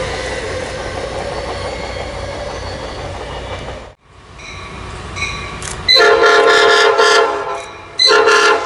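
Electric Stadler KISS multiple unit rolling away, its running noise fading. Then an approaching passenger train led by a bi-level cab car sounds its horn, a long blast a little after the midpoint and a shorter one near the end.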